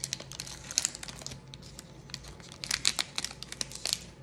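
A trading-card pack's wrapper being torn open and crinkled by hand: a run of irregular crackles, louder about a second in and again around three seconds in.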